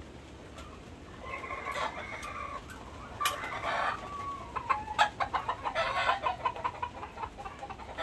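Chickens: a drawn-out rooster crow about a second in, another call about three seconds in, then a quick run of repeated clucks.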